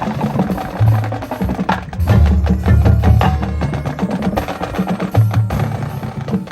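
Marching band playing a percussion-heavy passage: many sharp drum and percussion hits over short held low notes.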